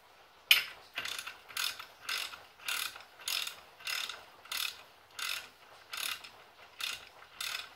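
Socket ratchet wrench clicking in about a dozen steady back-and-forth strokes, a little under two a second, as a bolt at the brake caliper is run in. It starts with a sharp click about half a second in.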